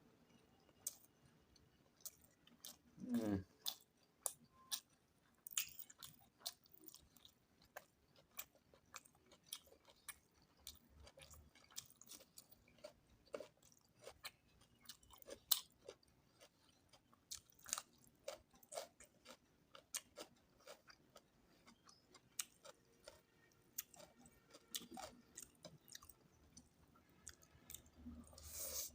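Someone chewing and eating goat meat curry with potatoes, with many short wet mouth clicks and smacks scattered throughout. There is one short falling pitched sound about three seconds in.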